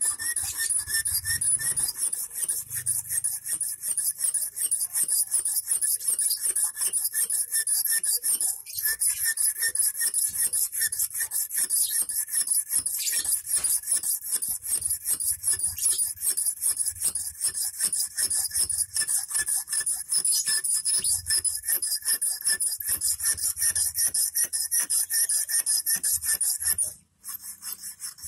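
Small hand file rasping back and forth on the tip of a 2.5 mm rust-proof steel wire, shaping the point of a large eel hook, in quick even strokes about three to four a second. It pauses briefly about nine seconds in and stops about a second before the end.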